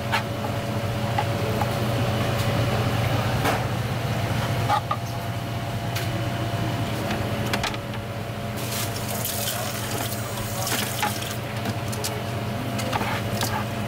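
Water running and trickling in a live-fish tank's circulation system, over a steady low hum, with scattered small clicks.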